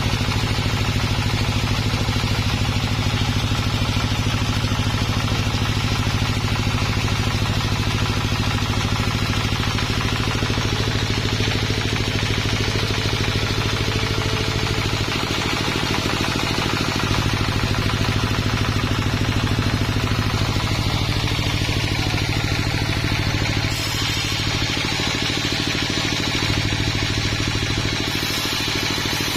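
A sawmill's engine running steadily, with some mechanical clatter and small shifts in load partway through.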